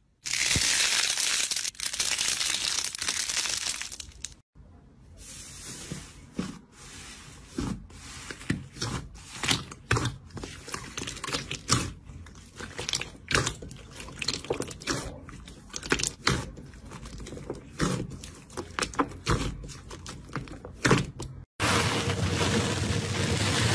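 A steady hiss for the first four seconds. Then clear slime is pressed and squeezed by hand in a glass bowl, with many small wet squelches and pops. About three seconds before the end, a finger scrapes across a layer of foam bubbles, making a steady crackling rustle.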